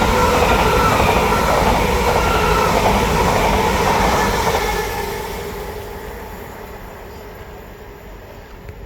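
A pair of Heathrow Express class 387 electric multiple units running past, with a steady electric whine over wheel and rail noise. The sound fades away from about five seconds in as the train moves off.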